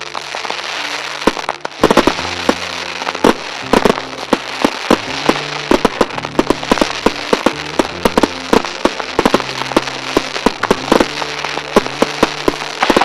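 Fireworks display: a dense barrage of aerial shell bursts with crackling, many sharp bangs every second. The barrage grows louder and thicker about two seconds in.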